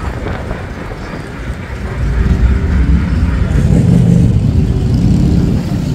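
Boardwalk tram's engine running as the tram rolls along, a low rumble that grows louder about two seconds in.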